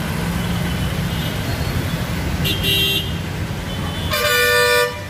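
Road traffic with a steady low engine rumble, broken by a short horn toot about two and a half seconds in and a longer, louder horn blast about four seconds in.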